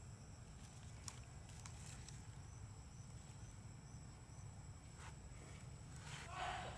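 Faint outdoor ambience: a low rumble, a thin steady high tone and a short run of high chirps, with a few soft ticks and a brief louder rustle near the end.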